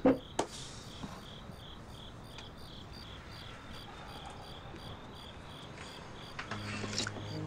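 Crickets chirping steadily, about three chirps a second. Two sharp knocks come in the first half-second, and soft, steady low music tones come in near the end.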